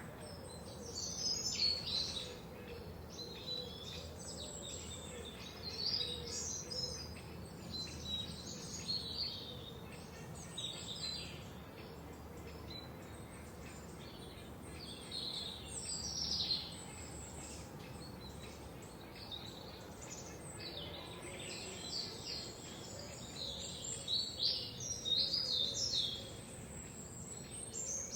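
Forest songbirds singing and chirping: quick high notes and short song phrases in loose clusters, over a faint steady background hiss.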